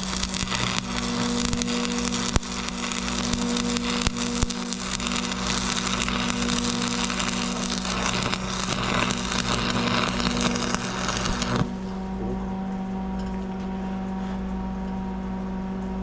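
Stick welding arc crackling steadily as a 6013 rod burns on the steel PTO shaft, stopping abruptly about three-quarters of the way through. The Lincoln welding machine's steady hum carries on after the arc breaks.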